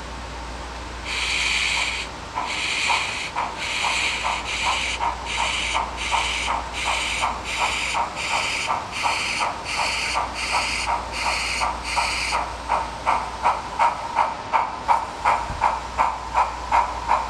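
Sound-equipped model steam locomotive chuffing slowly in a steady beat, each chuff a burst of hiss, about two a second. About twelve seconds in the hissing chuffs stop and a sharper, quicker tick carries on.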